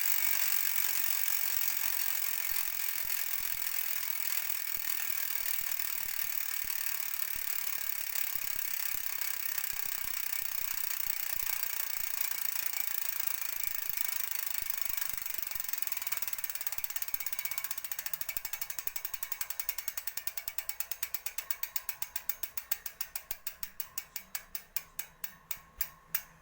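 Sagmit Secret V12 magnet rear hub's six pawls clicking over the ratchet as the wheel freewheels: a fast, even buzz that, over the last several seconds, slows into separate clicks spaced further and further apart as the wheel coasts to a stop.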